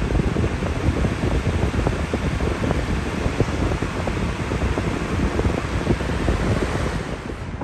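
20-inch Lasko Galaxy box fan running at speed just after start-up: a loud, steady rush of air with low buffeting on the microphone, easing off about seven seconds in.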